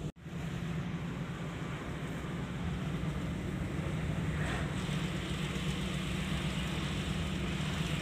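Steady engine and road noise from inside a moving car's cabin, with a constant low hum and a rushing wash of tyre and wind noise. The sound cuts out for an instant right at the start.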